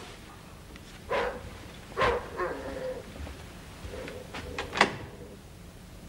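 A dog barking several times in short, separate barks, the loudest near the end.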